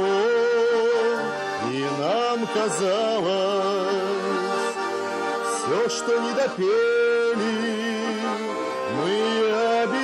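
A man singing a lyrical Russian song to garmon and bayan accompaniment, his voice sliding up into held, wavering notes over the steady chords of the two accordions.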